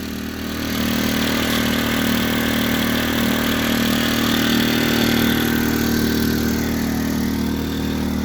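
Predator 2000 inverter generator's small single-cylinder four-stroke engine running steadily, freshly started, with its eco throttle off. It gets a little louder about a second in and then holds steady.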